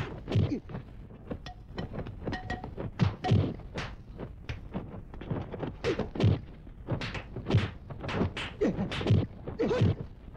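Rapid, irregular series of dubbed kung fu fight sound effects: punch and block impacts, about two or three thuds a second.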